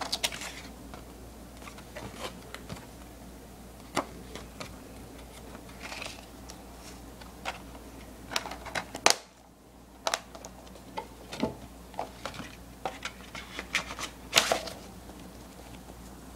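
A plastic DVD case and its paper insert being handled, making scattered clicks, taps and brief rustles. The sharpest click comes about nine seconds in as the case is swung shut.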